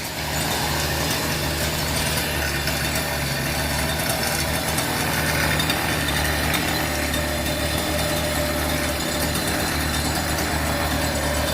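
Small gasoline engine of a motorized kayak idling steadily.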